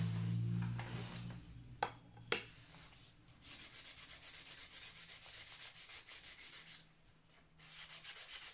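Sandpaper rubbed back and forth by hand on a wood intarsia piece, in even scratchy strokes about four or five a second, pausing briefly near the end and starting again. Two light knocks come about two seconds in, before the sanding starts.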